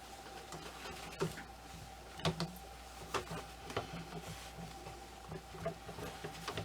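Light, irregular clicks and taps of small outfit and armor pieces being handled while dressing a ball-jointed doll.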